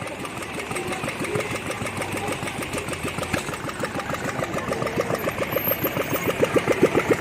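BSA WM20's single-cylinder side-valve engine running, a steady beat of about six exhaust pulses a second that grows louder and more distinct toward the end.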